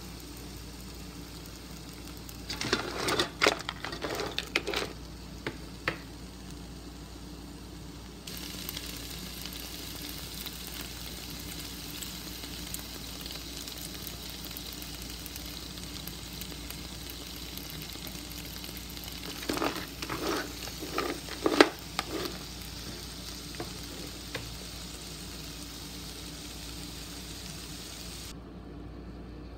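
Crab legs sizzling in a frying pan with tomatoes and hot pepper, a steady frying hiss. Two short spells of stirring clatter in the pan, about 3 seconds in and again about 20 seconds in.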